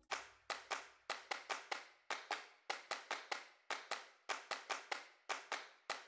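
Sparse percussion track of short, sharp clicks in a steady rhythm: quick runs of about six strokes with brief gaps between. The full background music comes in after them.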